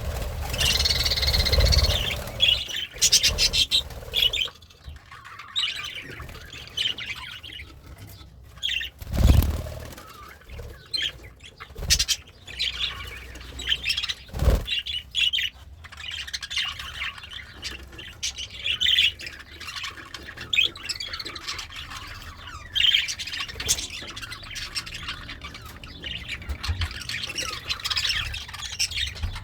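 Pet budgerigar chattering and warbling in quick runs of high chirps, with occasional squawks. A few short knocks stand out, about a third and halfway through.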